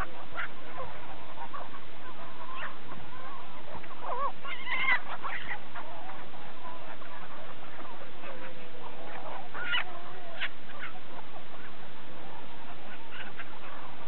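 A mixed flock of farmyard poultry calling: chickens and white waterfowl giving scattered short calls, busiest about four to five seconds in and again around ten seconds, over a steady background hiss.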